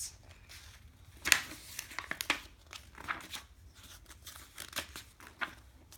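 Paper pages of a hardcover picture book rustling and crinkling under a small child's hands, a string of short scattered rustles with a sharper one about a second in.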